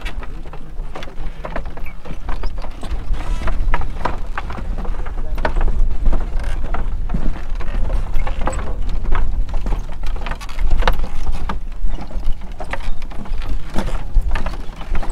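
Car driving on a gravel dirt road: a steady low rumble with a dense, irregular crackle of stones and grit under the tyres.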